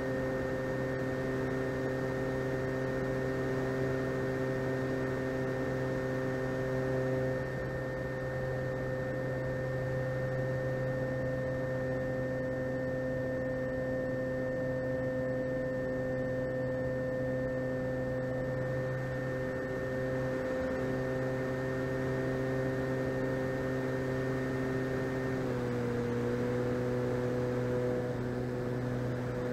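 The RC plane's electric brushless motor and propeller running at a steady cruise throttle: a steady multi-tone hum. Its pitch shifts slightly about a quarter of the way in and again near the end as the throttle changes.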